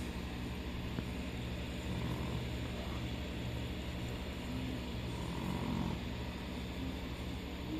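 An aquarium air pump humming steadily, with a low, rapidly pulsing buzz, under the bubbling of the bubble curtain it drives in the tank.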